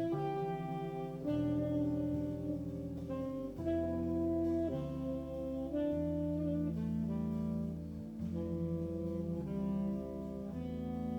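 Jazz quartet playing a slow ballad: saxophone holding long notes of the melody, each lasting a second or two, over sustained keyboard chords and bass.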